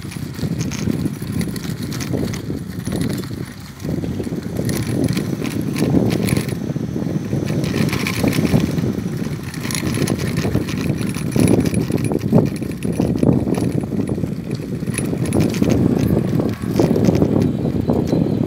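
Wind buffeting the microphone of a handlebar-mounted camera on a moving bicycle, with light rattles and clicks from the bike as it rolls over the road.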